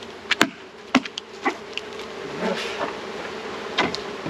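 Honeybees buzzing steadily around an open hive, with a string of sharp knocks and clicks, most of them in the first second and a half and one more near the end.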